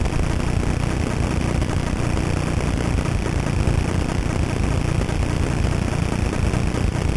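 Wind buffeting the camera microphone during skiing: a steady low rumble with hiss above it, unbroken and without separate events.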